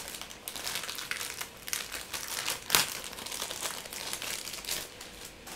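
Plastic crinkling and rustling as something is handled by hand, with irregular crackles and one sharper click about two and a half seconds in; it dies away near the end.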